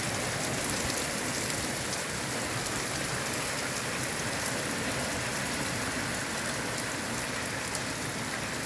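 Torrential rain falling steadily, an even hiss of heavy rain hitting surfaces, with scattered drop ticks.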